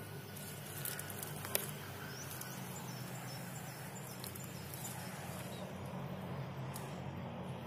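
Outdoor ambience with a steady low hum, faint high bird chirps and a few short clicks.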